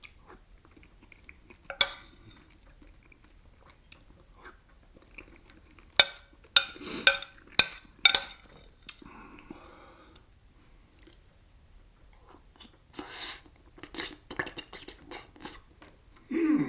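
A man eating chicken and dumplings: a few sharp clicks about two seconds in and again between six and eight seconds, then chewing near the end.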